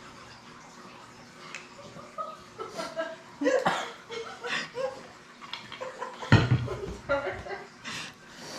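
Scattered quiet giggles and low voices in a small room, with small clicks and a low thump about six seconds in.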